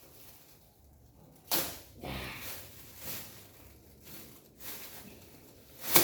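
Several quick swishes and crinkles of thin plastic kite material being handled, the loudest one near the end.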